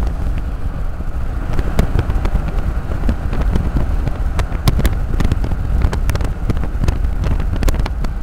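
Car driving along, heard from inside the cabin: a steady low rumble of road and engine noise with scattered small clicks and rattles.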